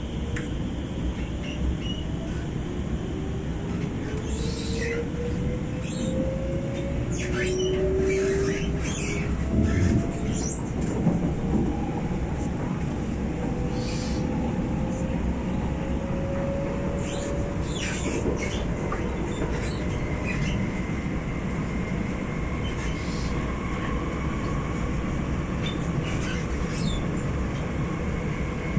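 Alstom R151 metro train heard from inside the passenger car, pulling away and accelerating. Its traction motors whine, rising slowly in pitch over the first fifteen seconds or so and then holding steadier, over a constant wheel-on-rail rumble with scattered short clicks and squeaks.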